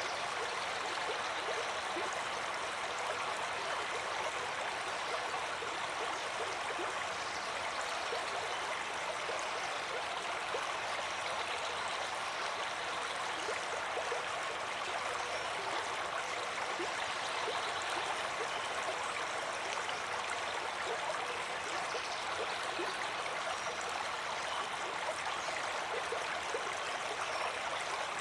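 Water flowing steadily, an even rushing sound with fine splashy detail and no change in level.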